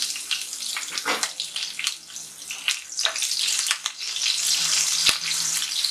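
Chopped green chillies and cumin seeds sizzling in hot oil in a steel kadhai: a dense, steady hiss full of crackles and spits as the chillies are stirred with a wooden spatula. There is one sharp knock about five seconds in.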